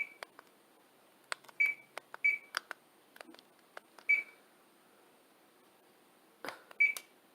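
Hunter Norden ceiling fan's receiver giving five short, high beeps at irregular gaps of one to two seconds as remote commands are sent to it, with light clicks between.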